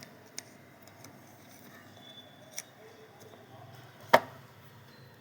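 A few sharp clicks and small knocks as an insulation tester's lead is unclipped from the red phase and moved to the yellow phase in a distribution board, with the loudest click about four seconds in.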